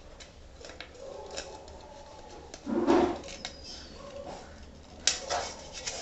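Small metal and plastic clicks and scrapes of a screwdriver working the adjusting screw and a new plastic roller being fitted into an aluminium sliding-door channel, with a dull knock about three seconds in and a sharper clatter about five seconds in.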